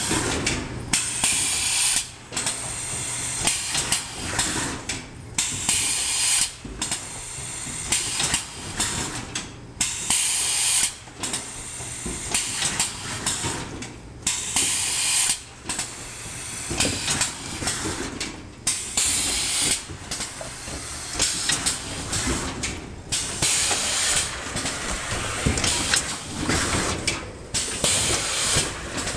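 Pneumatic automatic case erector cycling: air cylinders hissing and exhausting in repeated bursts every second or two as it forms corrugated boxes, over a steady low machine hum.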